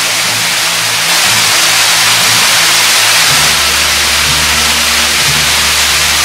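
Artificial waterfall splashing steadily onto the ground below. A low, steady engine-like hum runs underneath and grows louder about three seconds in.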